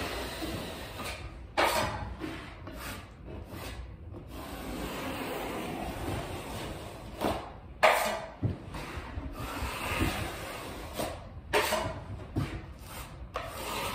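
Drywall taping knife scraping and wiping joint compound along mud-covered paper corner tape in an inside drywall corner, in a series of strokes, a few sharper scrapes standing out.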